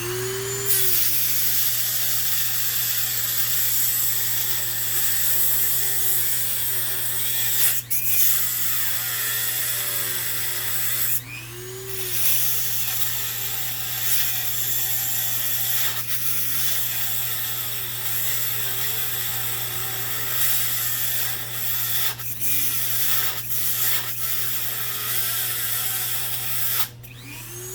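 Power tool cutting through the aluminium body of a water-heater gas valve. The motor runs almost without a break, its pitch dipping and recovering as it loads in the cut, and stops briefly about 8 s and 11 s in.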